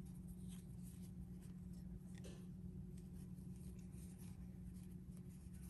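Faint soft scratching and rubbing of a metal crochet hook with a soft-grip handle drawing yarn through stitches, over a steady low hum.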